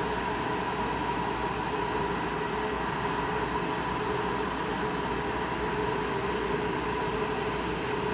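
EU160 (Newag Griffin) electric locomotive standing at the platform with its train: a steady hiss with a couple of steady whining tones that do not change.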